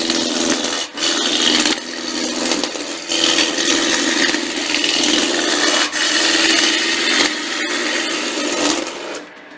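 A gouge cutting a spinning softwood blank on a wood lathe: a continuous rough shaving noise over the lathe's steady hum. The cutting breaks off briefly about a second in and again around six seconds, and drops away just before the end.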